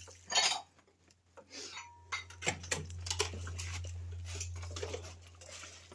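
Scattered light metallic clinks, taps and scrapes, with a short faint beep about two seconds in over a steady low hum.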